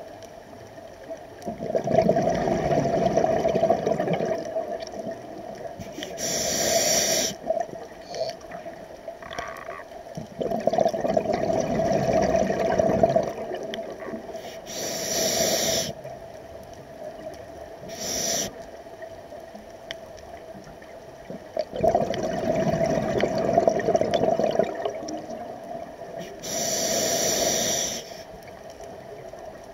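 Scuba diver breathing through a regulator underwater: three long bubbling exhalations of about three seconds each, with shorter hissing inhalations between them, in a slow cycle of roughly ten seconds.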